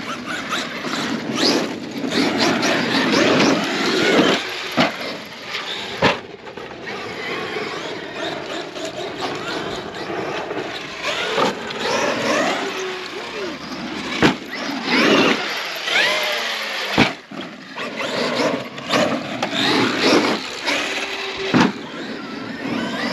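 Traxxas X-Maxx electric RC monster trucks driving over dirt jumps: the motors and gears whine, rising and falling in pitch with the throttle. A few sharp knocks, the trucks landing, come at intervals.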